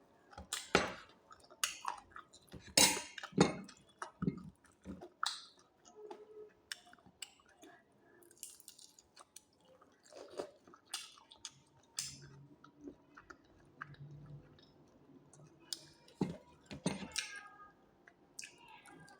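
Close-up mouth sounds of a person eating roast chicken: chewing, wet smacks and crunches at an irregular pace, with a few louder bites near the start and again near the end.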